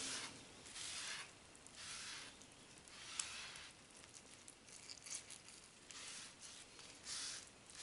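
A wet cloth dabbed again and again onto toner-transfer paper on a hot, freshly ironed copper circuit board. Each dab gives a short, soft hiss, about once a second, as the water meets the hot paper.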